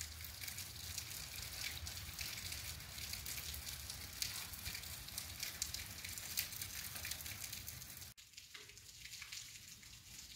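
Steady rain falling at night, a dense hiss full of small drop ticks, with a low rumble underneath. About eight seconds in the sound drops out for an instant, and the rain then goes on more softly.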